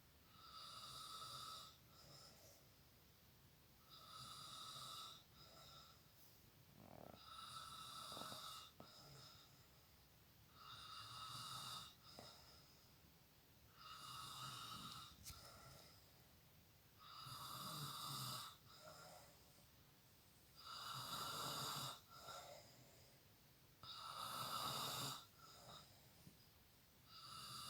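A sleeping person snoring faintly and regularly, one snore about every three and a half seconds, each lasting a second or so, the later ones somewhat louder.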